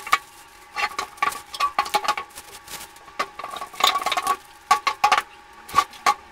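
Packing being cut and pulled apart to free a wood stove from its stand: irregular short clicks, rustles and light knocks, several in quick runs.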